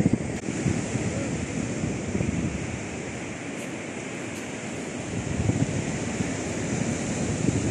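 Ocean surf washing steadily on a sandy beach, with wind buffeting the microphone in uneven gusts.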